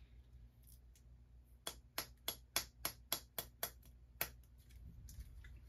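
A quick run of about ten light, sharp taps, about four a second, lasting a couple of seconds in the middle, over a faint steady low hum.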